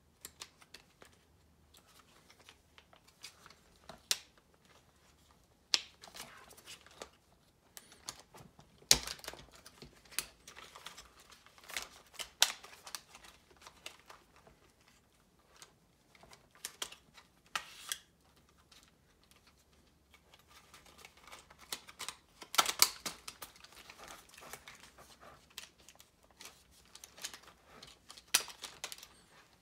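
Irregular clicks and knocks of hard plastic toy parts being handled and worked apart: the plastic head frame and eye mechanism of a FurReal Friends Torch dragon, with a few sharper knocks among them.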